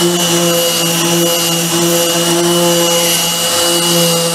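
Random orbital sander running steadily, sanding old paint off a wooden chest lid, with a steady hum and a thin high whine over the scrubbing hiss of the pad on the paint.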